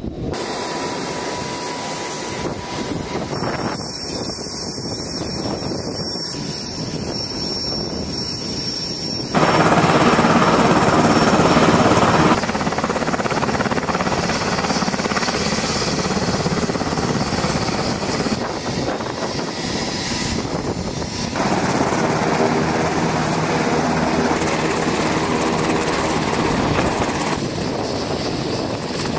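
Coast Guard MH-60T Jayhawk helicopter running on the ramp, its turbines and turning rotor making a continuous mechanical sound. The sound jumps in loudness and character several times, where the shots are cut together.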